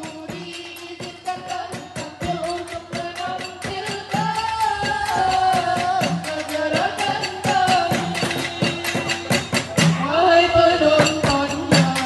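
Bagarakan sahur folk music: women singing a melody into microphones over a quick, steady beat of sticks struck on bamboo tubes. The music grows louder about four seconds in.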